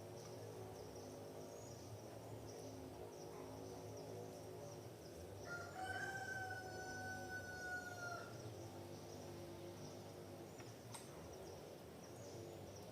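A rooster crows once, one long, slightly falling call of about three seconds, heard faintly over steady high-pitched insect chirring.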